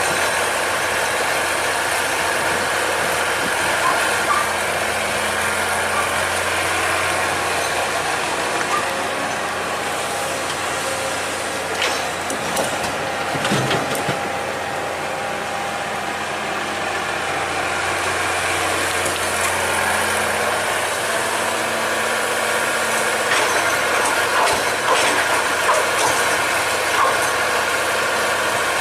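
Excavator's diesel engine running steadily, with a few sharp knocks about halfway through and more near the end.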